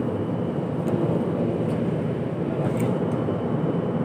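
Steady drone of a ship's machinery with a few faint clicks.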